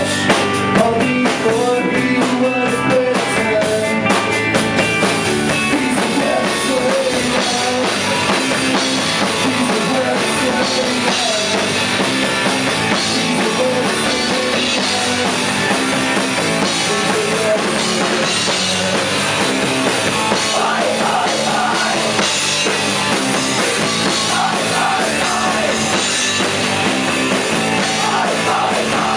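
A rock band playing live, with drum kit and electric guitar.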